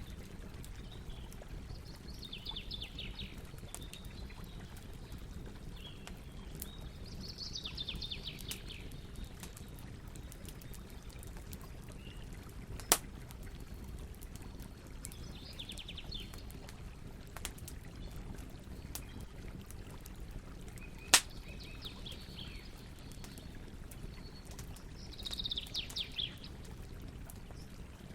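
Campfire burning with a steady low crackle and occasional sharp pops, two of them loud, about halfway through and again about three-quarters in. Small birds give short trilling calls several times in the background.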